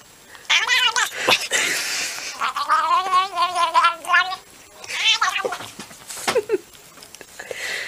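Tabby cat meowing and yowling: a short call, then a long warbling yowl about two and a half seconds in, then another short call about five seconds in.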